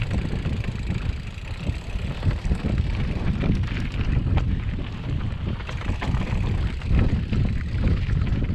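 Mountain bike descending a rocky, sandy trail: tyres crunching over stone and the bike rattling with many irregular knocks, over steady wind rumble on the microphone.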